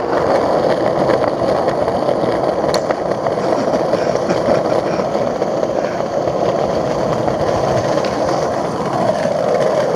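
Skateboard wheels rolling over paved pavement, a steady, grainy rolling noise that continues without a break.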